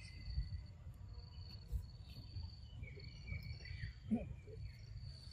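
Insects trilling over and over in high-pitched spells of about a second each, over a steady low rumble.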